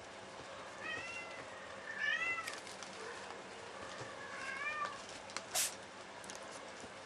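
Domestic cats meowing three times, each call rising and then falling in pitch, with a brief hiss late on.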